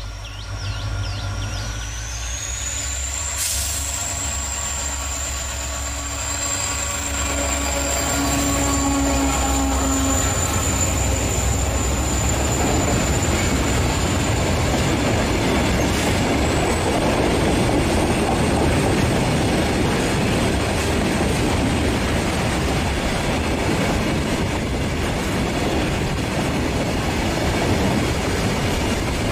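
An Indian Railways WDG4 diesel locomotive runs past, followed by the flatcars of a roll-on roll-off freight train loaded with trucks. The engine's low rumble dominates at first. From about eight seconds in, the louder rolling noise and clatter of the passing wagons takes over, with a steady high wheel squeal throughout.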